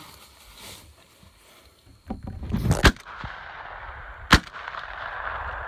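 Two shotgun shots about a second and a half apart, the first loudest and preceded by a short rustle of movement as the gun comes up.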